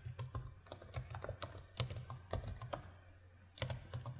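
Typing on a computer keyboard: a quick run of key clicks, with a short pause about three seconds in.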